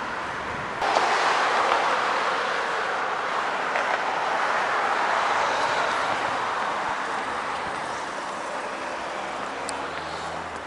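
Steady rushing noise of vehicle traffic going past. It jumps up sharply about a second in, then slowly fades.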